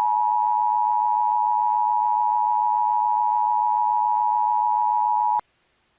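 Emergency Alert System attention signal: a steady two-tone electronic tone held for about five and a half seconds, then cutting off abruptly.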